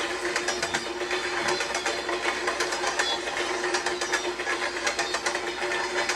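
Train clickety-clack sound effect: continuous rapid, dense clicking and rattling over a steady hum.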